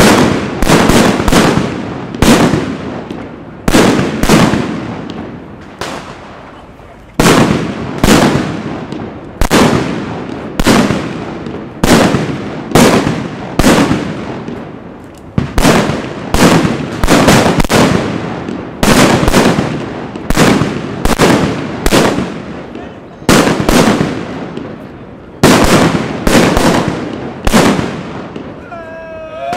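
Firecrackers exploding on the ground one after another: a long run of loud, sharp bangs, often in quick pairs or triples, each dying away over about a second.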